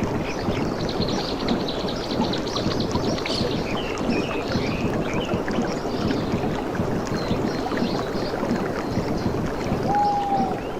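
Water lapping and splashing steadily, with small birds chirping over it and a quick trill in the first few seconds. A short, slightly falling whistled call comes near the end.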